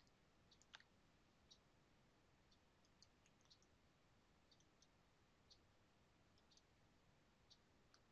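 Near silence, broken by faint, irregular computer mouse clicks as line points are placed in a CAD sketch; the strongest click comes under a second in.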